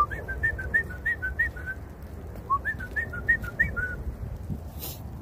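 A person whistling a quick run of two-note chirps, a rising high note then a lower one, repeated several times, then after a short pause a second run: a whistle calling a dog back.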